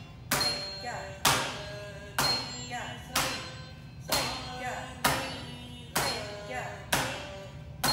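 Sharp rhythmic strikes about once a second, each followed by a short ringing tone, with a voice chanting rhythm syllables between them: the beat of the first Bharatanatyam thattadavu, the basic foot-striking step.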